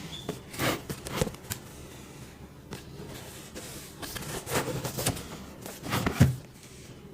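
Hands handling a boxed figure's cardboard and plastic packaging: scattered rustles, crinkles and scrapes, with a louder thump about six seconds in.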